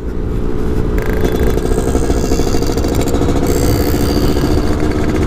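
Yamaha F1ZR's two-stroke single-cylinder engine running steadily while under way, with an added hiss in the upper range from about a second in.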